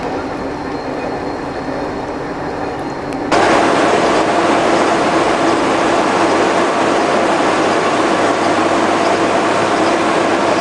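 Gear-cutting machine running steadily as it cuts the teeth of a bronze worm wheel, a continuous mechanical hum with a few steady tones. About three seconds in the sound jumps abruptly to a louder, fuller machine run.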